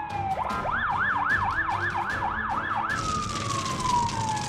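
Ambulance siren alternating between its two patterns. A slow falling wail ends about half a second in. A fast up-and-down yelp follows, about three cycles a second, and gives way to another slow falling wail about three seconds in.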